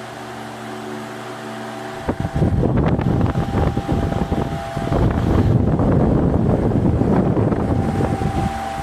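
Ventisol VOP 60 MX G3 60 cm, 200 W wall fan running at full speed, its motor giving a steady hum with several steady tones. About two seconds in, loud gusting wind buffets the microphone in the fan's air stream, and it eases near the end.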